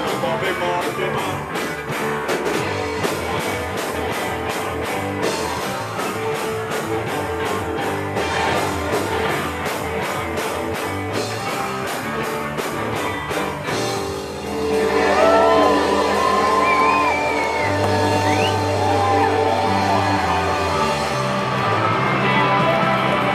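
Live band playing: electric guitar, bass and a drum kit keeping a steady beat. About fourteen seconds in the drum beat drops out, the music gets louder, and a wavering melody line rides over held bass notes.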